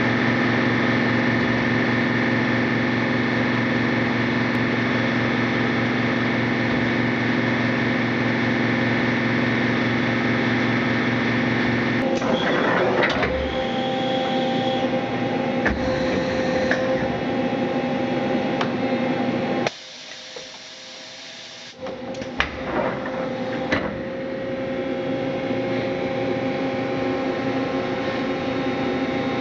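A 1991 Mazak H400 horizontal machining center running: a steady mechanical hum made of several tones. About twelve seconds in it changes, with clatters and clicks, cuts out for about two seconds near the twenty-second mark, then runs steadily again.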